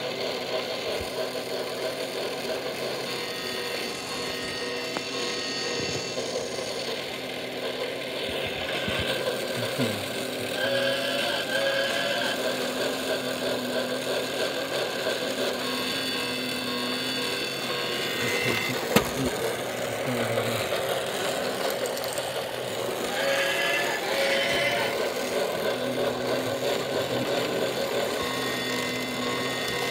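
Small electric motor of a Lionel toy train running round the track of an alarm-clock base, a steady mechanical whirr. Higher tones come and go every few seconds, and there is one sharp click partway through.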